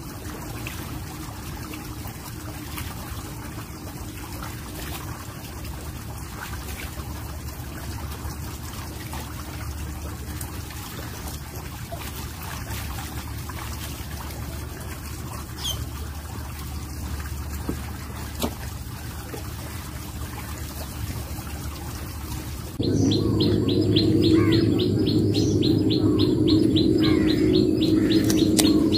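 Hands swishing in a shallow pool of still water, washing freshly picked mushrooms: faint splashing over a low, steady background. About 23 seconds in, the sound cuts abruptly to louder outdoor ambience with a rapid, even run of high chirps, about five or six a second.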